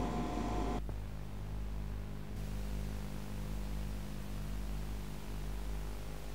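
Steady low electrical hum with hiss on the soundtrack of an old analogue video recording. A noisier background sound with a steady high tone cuts off suddenly about a second in, leaving only the hum and hiss.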